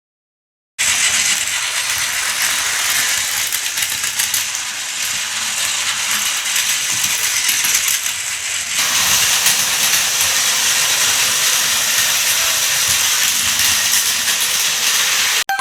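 Plarail battery-powered toy train running on its plastic track: a continuous clattering, whirring gear-motor noise that starts suddenly about a second in and changes in tone about nine seconds in.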